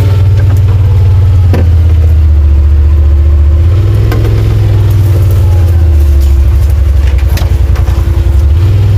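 Yamaha side-by-side UTV's engine running under way on a trail, heard from the driver's seat: a loud, steady low drone that shifts slightly in pitch about four seconds in and again near the end.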